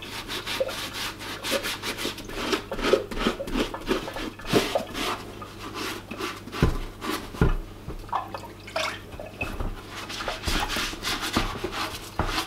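Scouring sponge scrubbing a wet leather hiking boot, in quick repeated rubbing strokes, with a few dull knocks around the middle.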